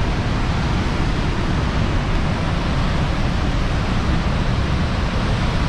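Steady, loud rush of Niagara Falls' falling water, an even noise with no breaks.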